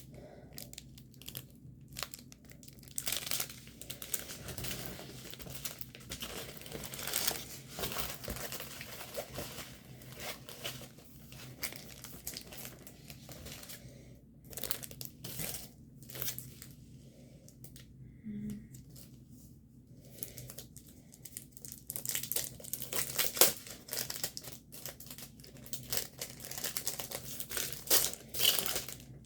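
Plastic packaging of a diamond painting kit crinkling and rustling as it is handled and opened, in irregular bursts that are loudest in the last third.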